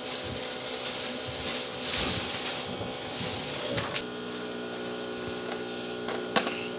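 Steady electric hum of the Nerf Hover Shot's blower fan, with a hissy rustle that stops about four seconds in. A few plastic clicks as Nerf darts are pushed into a 12-round clip, the sharpest near the end.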